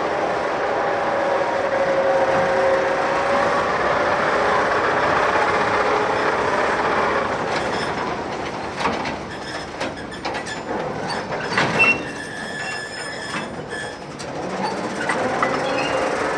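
Empty railway goods wagons being shunted: steel wheels squeal with a wavering pitch as the wagons roll, then about halfway through come a run of sharp metallic clanks and knocks with a short ringing clang, and the squealing starts again near the end.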